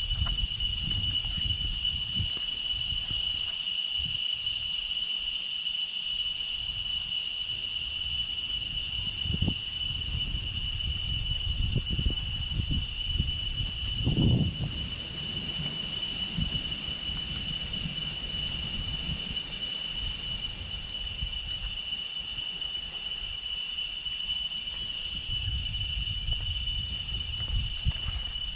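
Insects droning steadily in high, continuous tones, with one of the higher tones cutting out about halfway through. Beneath them runs a low, uneven rumble, with a brief louder rumble at that same point.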